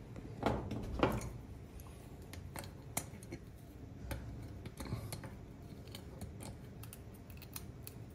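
Adjustable wrench working a brass ball valve on refrigerant piping as it is turned closed: a series of small sharp metal clicks and scrapes, with two louder knocks in the first second.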